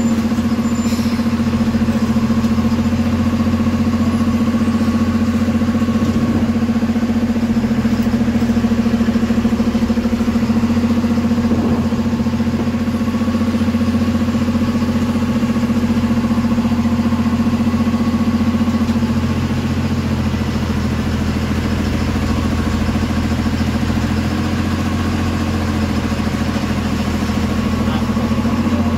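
MSRTC bus's diesel engine idling steadily, heard from the driver's cab while the bus stands still. The engine note eases slightly about two-thirds of the way through.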